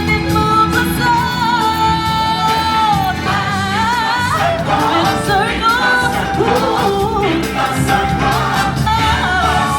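Stage-show singing with a choir over backing music: lead voices hold long notes with a wavering vibrato while the chorus sings beneath them.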